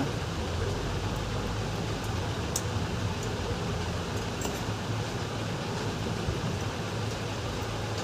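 Steady low background hum and hiss, with a faint click about two and a half seconds in.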